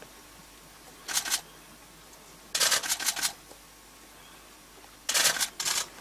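Camera shutters firing in rapid bursts: three runs of quick clicks, about a second in, around the middle and near the end.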